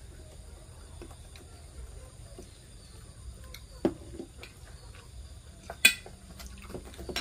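Small taps and clinks of eating from ceramic plates at a table, with a clearer tap about four seconds in and a sharp clink near six seconds. A faint, steady high tone runs underneath.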